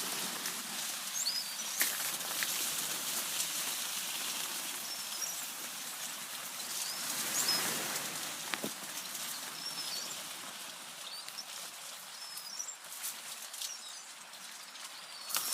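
Small birds giving short, high chirps here and there over a steady outdoor hiss.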